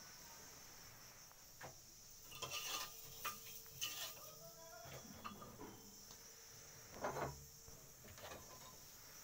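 Crickets chirring steadily in the background, with light clicks and rustles of handling in clusters about two to four seconds in and again near seven seconds.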